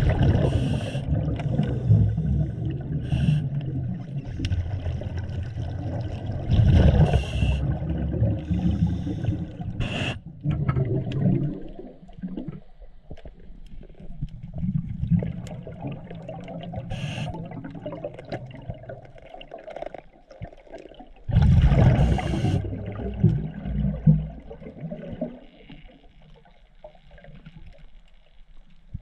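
Scuba diver's exhaled bubbles from the regulator, heard underwater: gurgling, rumbling bursts that come and go with each breath, three of them loud, with quieter stretches between.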